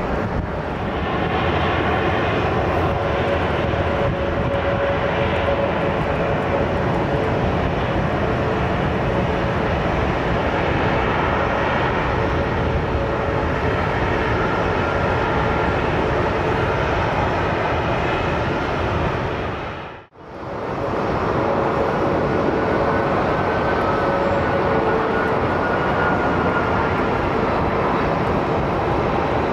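Boeing 747-400 jet engines running as the airliner taxis: a steady rumble with a steady whine over it. The sound drops out briefly about two-thirds of the way through, then comes back.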